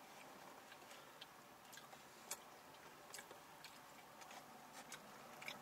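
Quiet chewing of a chicken sandwich and wrap: faint, irregular mouth clicks and smacks.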